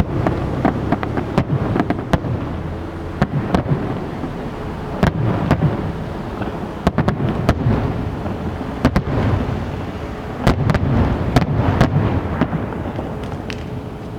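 Fireworks display: many sharp bangs and crackles in irregular clusters over a continuous low rumble.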